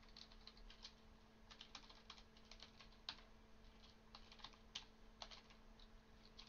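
Faint computer keyboard typing: quick, irregular key clicks as a password is typed in and then typed again to confirm it, over a faint steady hum.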